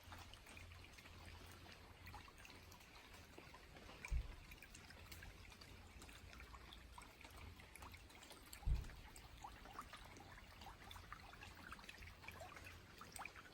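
Rain falling in rainforest: a faint steady hiss of rain with scattered drips and trickling water. Two short, dull low thumps stand out, about 4 and 9 seconds in.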